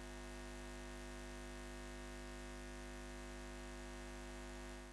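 A steady hum of several held tones over a hiss, fading out near the end.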